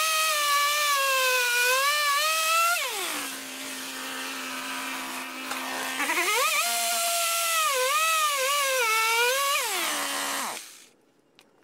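Ryobi chainsaw at high revs cutting through a cedar log, its pitch sagging and wavering as the chain bites. It drops back to a steady idle for about three seconds, revs up and cuts again, then is shut off near the end.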